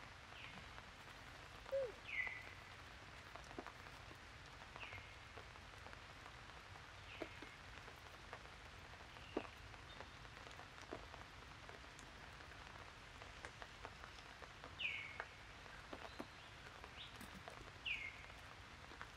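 Faint steady patter of water on leaves and stone just after rain, with scattered light drip clicks. A short falling chirp repeats every two to three seconds.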